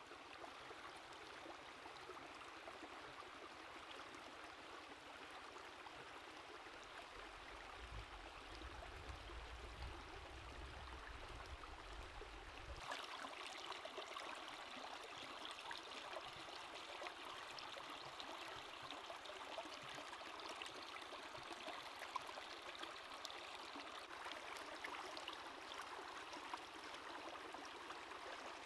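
Shallow rocky stream running and burbling, a steady faint sound of flowing water throughout.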